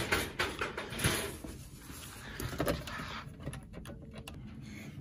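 Handling noises: a loud knock right at the start, then scattered knocks and rustling. About three and a half seconds in comes a run of quick clicks from the buttons of an office desk phone's keypad being pressed.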